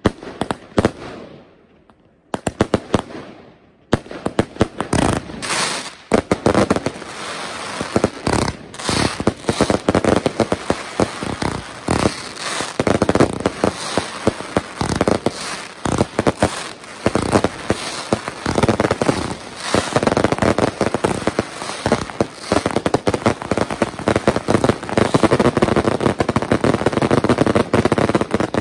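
Fireworks display: a few separate bangs at first, then from about four seconds in a dense, continuous barrage of launches, bursts and crackling that grows louder toward the end.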